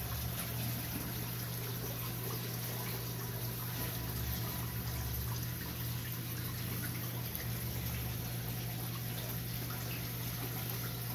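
Steady aquarium water noise: water trickling and pouring into the tank from the filtration, over a steady low hum.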